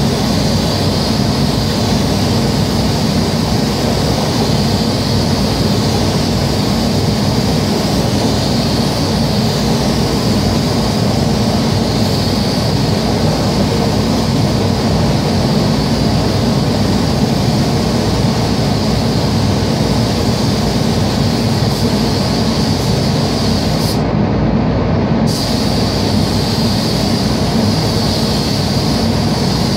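Steady rushing noise of a paint spray booth's ventilation fans and airflow, with the hiss of a compressed-air spray gun spraying paint onto car panels. The higher hiss cuts out abruptly for about a second near the end.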